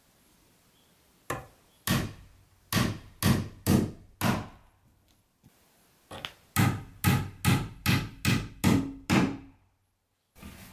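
Claw hammer driving nails into a lumber frame: two runs of sharp blows, about seven, then after a short pause about nine quicker ones, each with a short ring.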